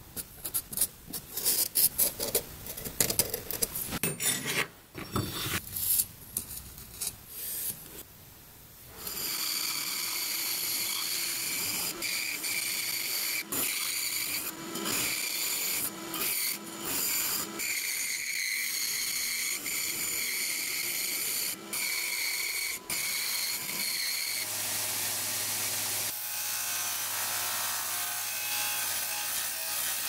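Irregular scraping strokes on a black micarta block for the first several seconds. Then a bandsaw runs steadily, cutting the micarta, with a few brief breaks in the cut. Near the end a bench disc sander hums while the micarta is sanded against its disc.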